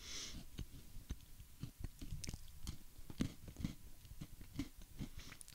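A person chewing crunchy cookies-and-cream Pocky biscuit sticks close to a microphone: a run of small, irregular crunches.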